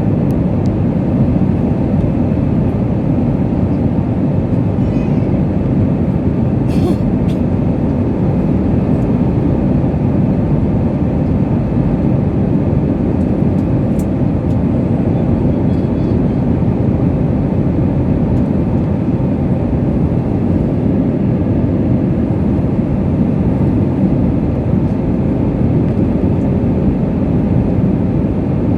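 Steady cabin noise of an airliner in flight, a constant low rush of jet engines and airflow heard from inside the cabin, with a couple of faint clicks.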